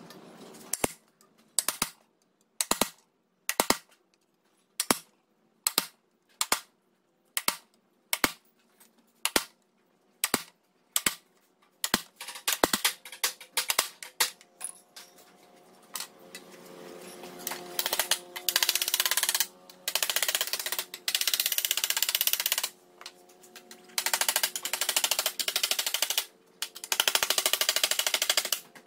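Hand tools working a sheet-steel repair panel on a bench: a run of sharp metal taps about one a second, then, from a little past halfway, longer and louder stretches of harsh scraping noise lasting a second or two each.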